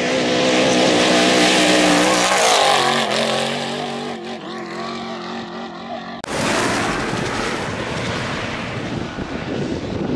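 A Trophy Truck race truck passing at high speed on a dirt road: its engine is loudest about two seconds in, then drops in pitch as it goes by and fades. About six seconds in, a loud steady rushing noise cuts in suddenly.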